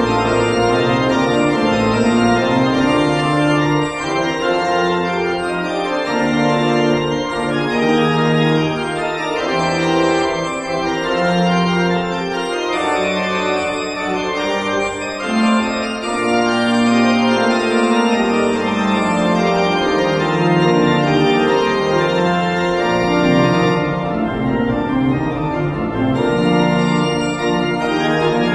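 Pipe organ played with full held chords over a slowly moving bass line, the chords changing every second or two.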